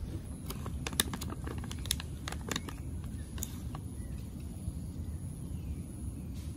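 Crisp crunching and crackling of a wrapped biscuit being eaten up close: a quick run of sharp clicks that stops about halfway through, over a steady low rumble.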